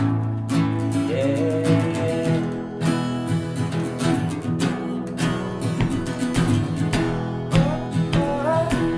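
Three acoustic guitars strummed together in a steady rhythm, an instrumental passage of a folk-rock song, with a voice joining in near the end.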